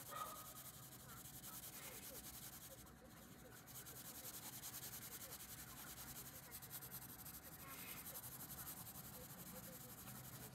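Faint scratching of a colored pencil shading paper in quick back-and-forth strokes, with a short lull about three seconds in and a brief sound right at the start.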